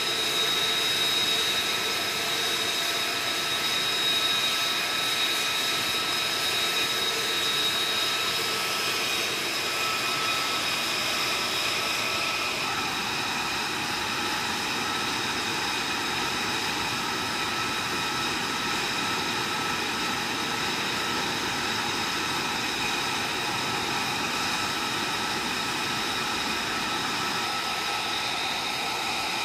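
F-35B's F135 turbofan jet engine running steadily while the aircraft is parked, a high whine over a steady rush of jet noise. The whine's tones change a little about ten seconds in.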